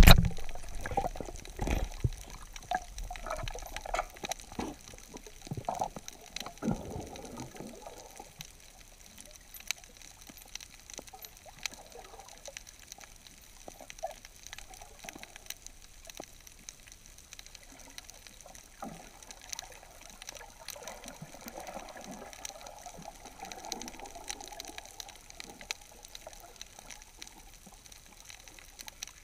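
Underwater reef ambience recorded through a waterproof camera housing: muffled water sloshing, busiest in the first eight seconds, with scattered sharp clicks throughout.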